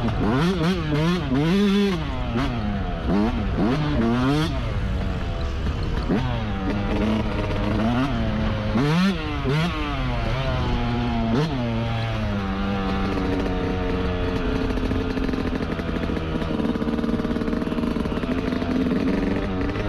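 Yamaha YZ125's single-cylinder two-stroke engine being ridden, its pitch rising and falling again and again as the throttle is worked, then holding a steadier pitch for the last several seconds.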